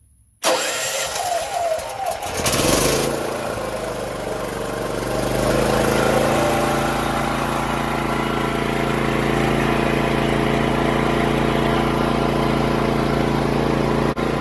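Champion 8750-watt open-frame inverter generator cold-started on its electric push-button start with the choke out: the starter cranks for about two seconds, the engine catches and settles into steady running, getting a little louder around five seconds in.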